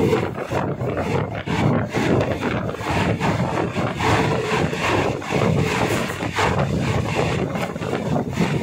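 Passenger train running, heard from an open carriage window: wind buffeting the microphone over the rumble and irregular clatter of the carriage on the rails.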